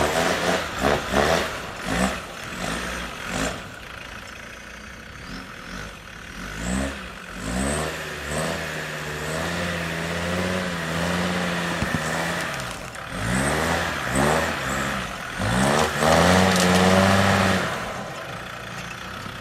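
Land Rover Discovery TD5's five-cylinder turbodiesel engine revving up repeatedly and holding higher revs for a few seconds at a time. Knocks and rattles come through in the first few seconds.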